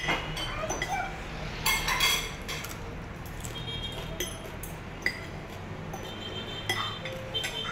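A metal spoon and fork clinking and scraping against a ceramic plate during a meal, in a series of irregular sharp clinks, over a low steady background hum.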